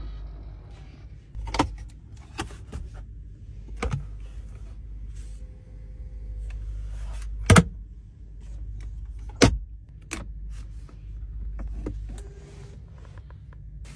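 Clicks and knocks from a car's centre console being worked by hand, as a compartment cover opens and a tablet is unclipped from its holder, over a low steady cabin hum. The loudest is a sharp double knock about seven and a half seconds in.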